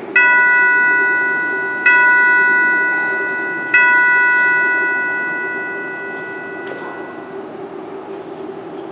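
Altar bell struck three times, about two seconds apart. Each stroke rings out with several clear tones and fades slowly. This is the bell rung at the elevation of the host during the consecration at Mass.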